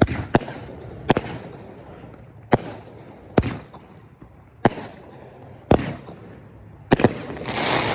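Aerial fireworks going off: about eight sharp bangs at uneven intervals, roughly one a second, with a hissing, crackling burst near the end.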